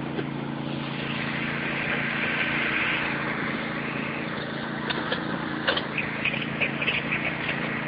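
Riding lawn mower engine running steadily, with short clicks and knocks coming in from about halfway through.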